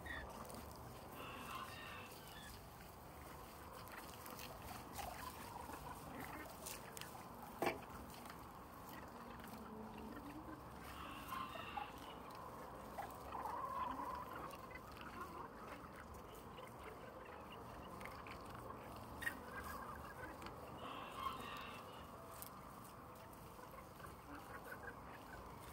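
A flock of backyard chickens clucking and calling softly here and there while they feed, with a few sharp clicks; the loudest is a single click about eight seconds in.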